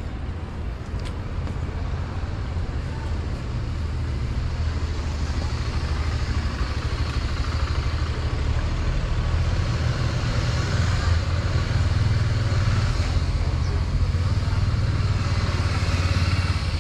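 Urban street ambience dominated by a steady low motor-vehicle engine rumble that grows gradually louder, over a hiss of traffic.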